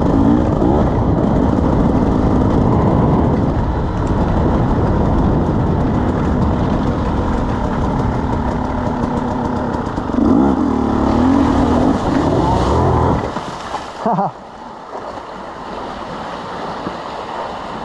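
KTM 300 EXC two-stroke single-cylinder engine being ridden hard, revving up and down with the pitch rising and falling. About 13 seconds in the throttle closes and the engine drops to a low idle, with one short throttle blip about a second later.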